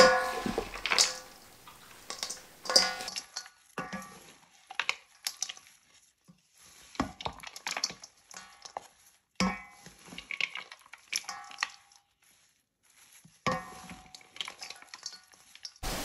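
Two wooden spoons tossing kale salad in a stainless steel mixing bowl: irregular knocks and scrapes of wood on metal, some leaving the bowl ringing briefly. A short pause comes about twelve seconds in.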